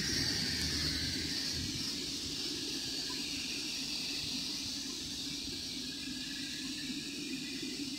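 Distant twin-engine jet airliner at low taxi thrust as it lines up on the runway: a steady engine hiss and whine over a low rumble, fading slightly.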